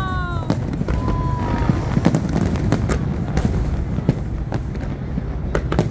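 Fireworks going off in quick succession: many sharp bangs at uneven intervals over a steady low rumble, with a short whistling tone about a second in.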